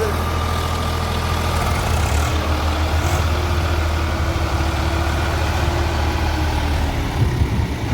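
Heavy diesel engine running steadily at low revs, with a few brief knocks near the end.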